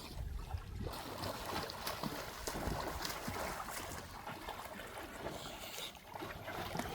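River water sloshing and trickling, with small splashes, around a person floating in it.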